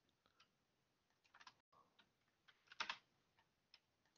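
Faint, sparse computer keyboard keystrokes: a few single key taps, with a short run of keys about a third of the way in and the loudest little cluster about two-thirds through.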